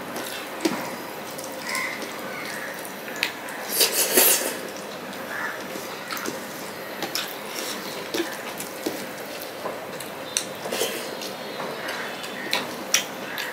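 Eating by hand from a steel plate: fingers mix and scoop rice with fish curry, with scattered light clicks and scrapes on the plate and wet mouth sounds of chewing. There is a louder wet cluster of sound about four seconds in.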